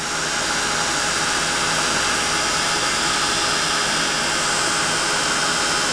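Handheld Ranger embossing heat tool blowing hot air steadily, a constant fan rush with a faint hum, melting Distress embossing powder. A deeper rumble underneath eases off a little past halfway.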